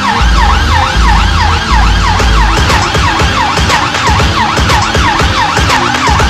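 A fast yelping siren, each wail rising and falling about three times a second, set over heavy bass hits and percussion of a trailer soundtrack.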